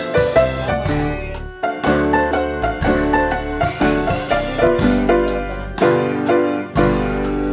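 Background piano music, a run of distinct notes over a sustained bass.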